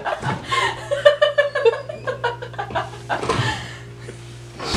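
A young woman laughing, with a low steady hum underneath.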